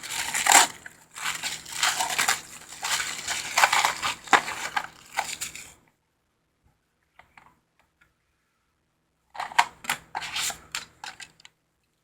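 Small cardboard box packaging being torn open and crushed by hand: dense crackling and tearing for about six seconds, then a pause and more rustling and clicks near the end.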